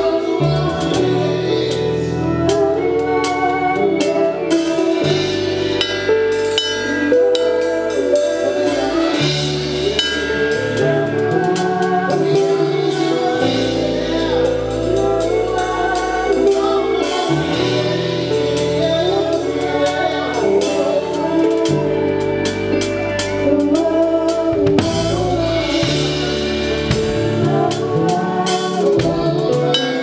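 A live band playing with a drum kit: snare, toms and cymbals struck with sticks under a low bass line and a guitar, with several singers.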